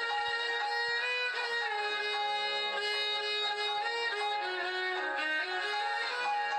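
Background music: a violin melody of long held notes moving from pitch to pitch.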